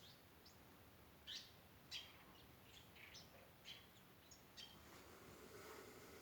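Small birds giving short, sharp chirps, scattered irregularly and faint, each call dropping quickly in pitch. A soft rush of noise swells near the end.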